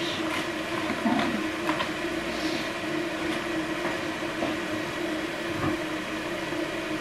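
A steady rushing hum with a constant low drone that holds throughout, with a few light clicks and rustles in the first second or so.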